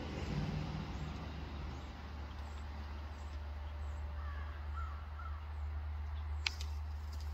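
Crows cawing in the distance, a few calls around the middle, over a steady low rumble; a single sharp click near the end.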